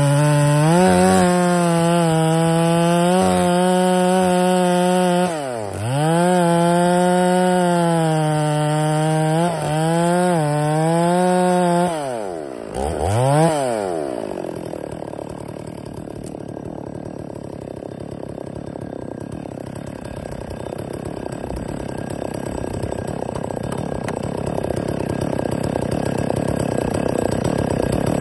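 Stihl 046 two-stroke chainsaw with a long 32-inch bar and a dull square-ground chisel chain cutting through a large pine. The engine note sags and picks up again twice under load in the first half. It then turns quieter and rougher for the second half, and the steady high revs return near the end.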